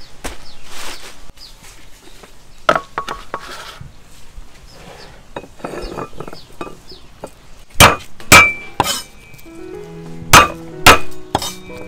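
Hard knocks and clinks against a dish in a kitchen: a few light taps, then two sets of three loud, sharp knocks with a brief ring. Background music comes in near the end.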